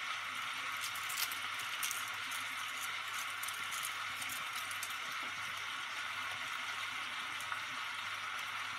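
Pork pieces sizzling steadily in a frying pan, with the foil wrapper of a stock cube crinkling a few times about one to two seconds in as it is unwrapped by hand.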